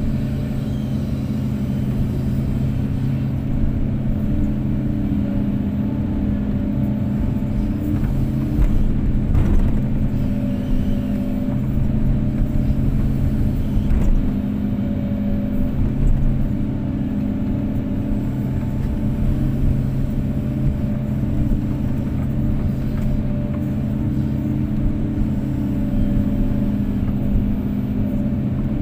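Diesel engine of a Kobelco SK250-8 hydraulic excavator running steadily under working load, with a couple of short knocks partway through.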